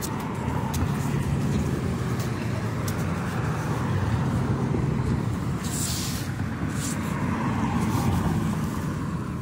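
Road traffic passing over a bridge: a steady rumble of vehicles that swells and fades as they go by, with a few light clicks.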